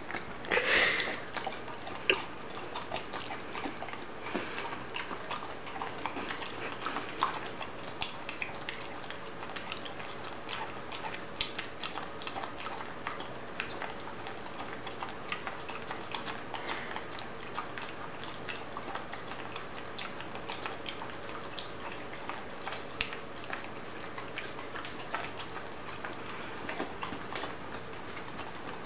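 Bernese mountain dog puppy licking and smacking peanut butter off a metal spoon: a long, irregular run of small wet clicks and lip smacks.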